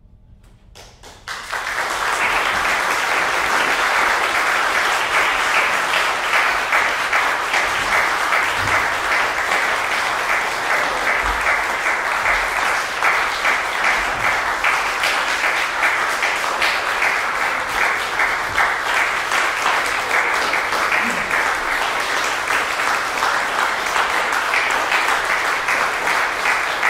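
Concert audience applauding. The clapping breaks out about a second in, after a quiet moment, and goes on steadily.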